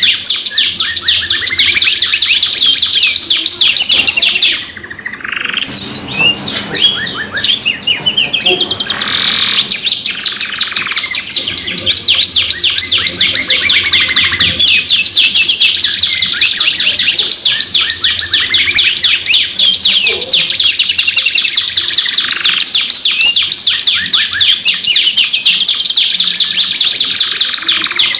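Domestic canary song: long, rapid rolling trills and chirps, high-pitched and nearly continuous, with a brief lull about five seconds in.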